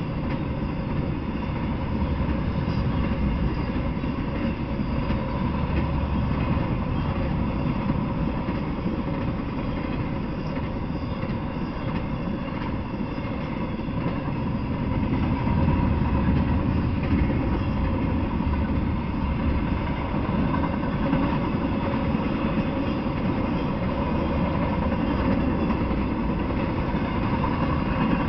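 Intermodal freight train rolling past: trailer flatcars and double-stack container cars make a steady rumble of steel wheels on the rails, with faint steady ringing tones over it.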